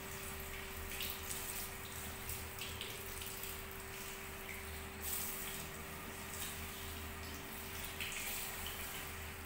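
Water spraying from a handheld shower head onto hair and splashing into a salon shampoo basin, with frequent small splashes.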